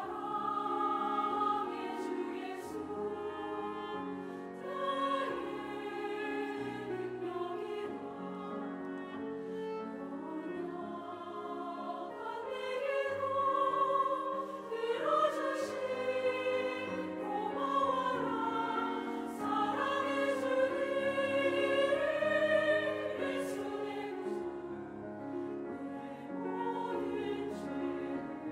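Choir singing a sacred anthem in Korean, the voices holding long notes.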